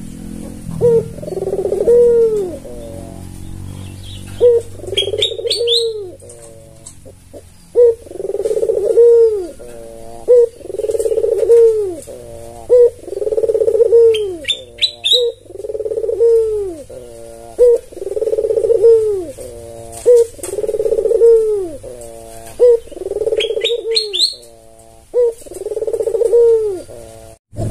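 White albino ringneck dove cooing over and over, a rolling coo about every second and a half. Brief high chirps break in three times.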